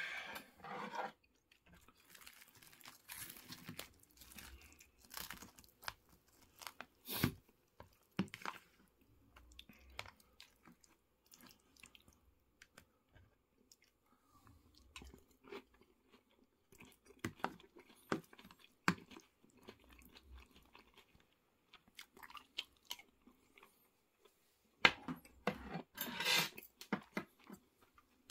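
Close-up eating sounds: chewing and crunching of breaded cheese pork cutlet with curry rice, with sharp clicks now and then. The loudest bout of crunching comes near the end.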